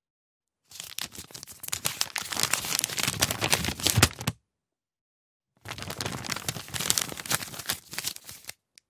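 A folded paper leaflet being unfolded by hand, the sheet crackling and rustling in two runs of a few seconds each with a short pause between.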